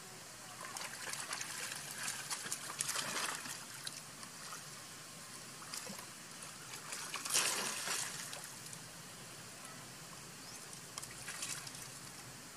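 Water splashing and sloshing as a macaque swims through a pool, over a steady trickle. There are two louder spells of splashing, one from about a second in to past three seconds and a stronger one around seven seconds in.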